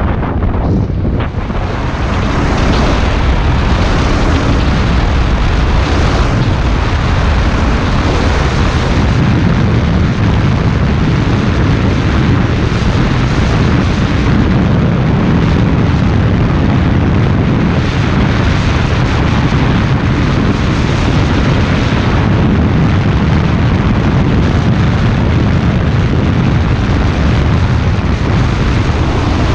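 Wind rushing over a helmet-mounted microphone on a moving motorcycle, with the engine running underneath. It grows to a steady loud rush about two seconds in and holds there.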